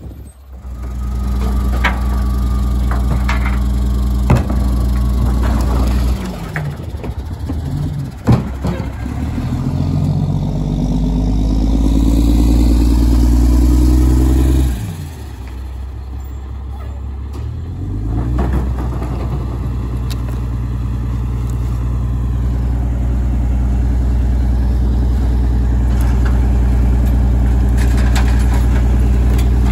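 Diesel engine of a 2007 Mack LE garbage truck running, its pitch rising as the truck pulls ahead and then dropping off sharply. It climbs again and holds a steady raised speed while the Heil rear-loader packer cycles. A few sharp knocks of bins and cans come in the first part.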